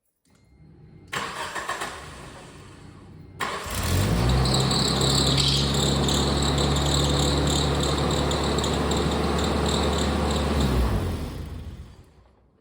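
A 1997 Geo Tracker's four-cylinder engine is cranked and catches about three and a half seconds in, then runs steadily with a continuous high-pitched squeal from the belt-driven alternator before being switched off near the end and winding down. The uploader blames the squeal on a failing alternator bearing, its pulley running super hot.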